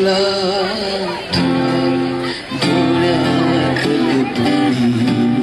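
Live unplugged performance: an acoustic guitar strummed in chords, changing about every second or so, with a man singing held notes over it.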